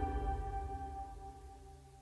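Background music ending on a held chord that fades away to nothing.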